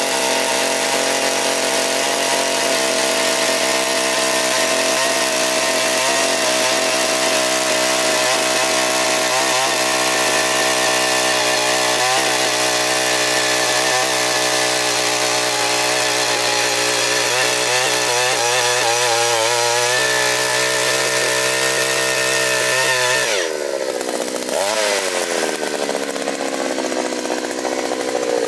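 Small two-stroke, single-cylinder, air-cooled engine of a Takyo TK-3P push-type earth auger running steadily at high speed while it drills into hard ground, with a few brief knocks. About 23 seconds in the engine note drops and then wavers up and down.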